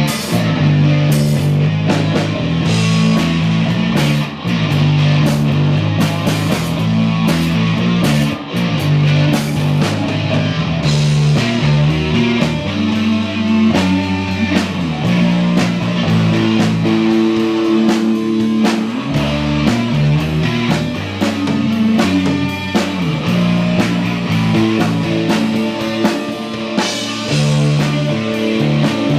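Rock band playing live: guitars over a drum kit keeping a steady beat.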